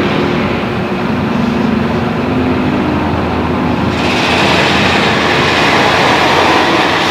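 Compressed air blowing flushing chemical through a car's air-conditioning lines: a loud, steady rushing hiss that turns sharper about four seconds in.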